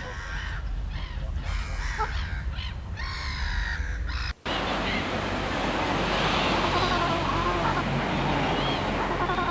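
Harsh, repeated bird calls over a low rumble, then, after an abrupt cut about four and a half seconds in, a dense chorus of many birds chirping and chattering together.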